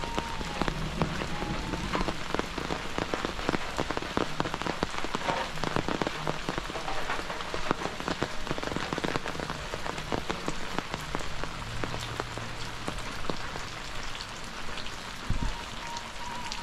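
Steady rain pattering down, with many sharp, close drops standing out against the hiss of the rainfall.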